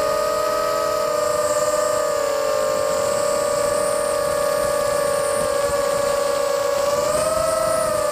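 FPV quadcopter's motors and propellers whining steadily, several close tones beating against each other. The pitch shifts slightly with throttle and rises briefly about seven seconds in before settling back.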